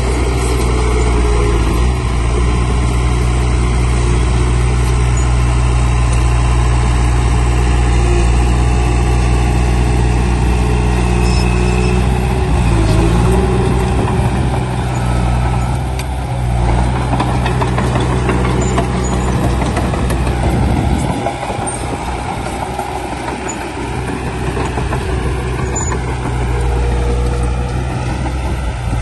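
Heavy diesel engine of earthmoving machinery running steadily under work. The low rumble eases off about three-quarters of the way through.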